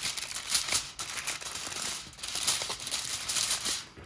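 Aluminium foil crinkling as it is pressed and crimped down around the edges of a baking tray, in irregular spells with short pauses about one and two seconds in.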